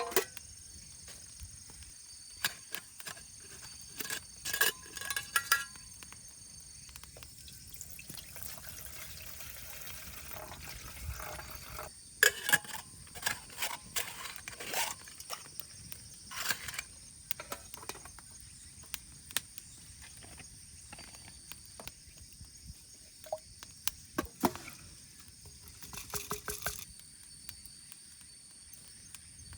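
Aluminium mess tin and camp cookware being handled, with scattered light clinks and knocks, and water being poured for a few seconds about a third of the way in. A steady high insect chirr runs underneath.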